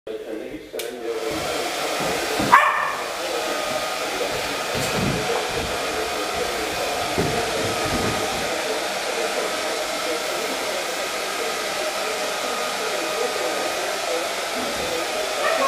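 Handheld hair dryer coming on within the first second and then running steadily, a smooth rushing blow with a faint steady whine. One brief, louder pitched sound cuts in about two and a half seconds in.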